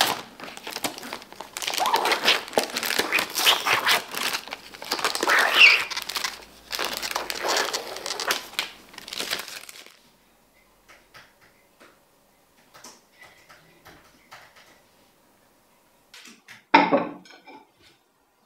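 Plastic salad packaging crinkling and tearing as it is opened and the leaves are tipped out, for about ten seconds. It stops abruptly, and near the end come two short clatters of plates being set on a wooden table.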